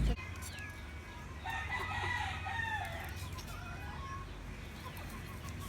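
A rooster crowing once, starting about a second and a half in and lasting just under two seconds, over a low background hum.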